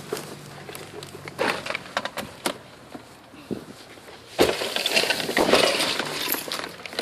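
A large boxed package being moved: scattered knocks and rattles, then a louder stretch of scraping and clattering about four and a half seconds in.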